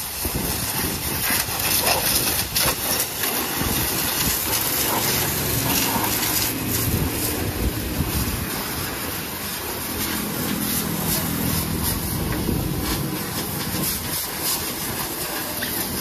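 High-pressure washer jet spraying water onto a muddy tractor's fenders and rear tyre: a steady hiss of spray, with a low hum underneath.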